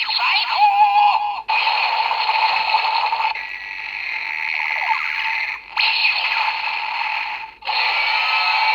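DX WizarDriver toy belt playing the Land Dragon ring's transformation audio through its small, tinny speaker: an electronic voice call and jingle, in several segments with short breaks between them.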